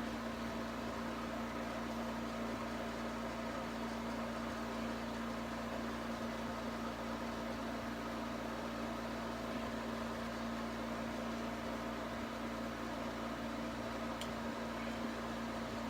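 Steady, unchanging background hum with a constant hiss: one low tone held throughout.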